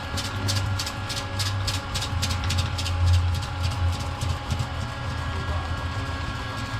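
A machine running steadily with a low hum, with a fast regular ticking of about six or seven clicks a second that fades away over the first couple of seconds.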